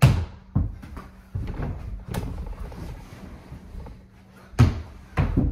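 A ball thudding and knocking as it is shot and bounces off the hoop and nearby surfaces. There are four knocks in the first couple of seconds and two more near the end.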